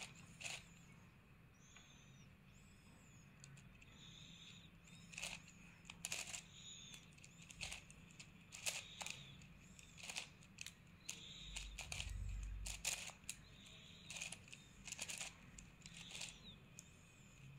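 Plastic 9×9 twisty-puzzle cube's layers clicking and clacking as they are turned by hand, in irregular single clicks and short runs.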